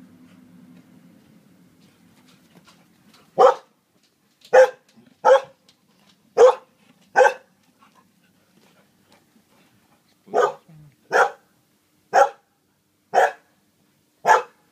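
A dog barking: single sharp barks about a second apart, five in a run starting about three seconds in, a short pause, then five more.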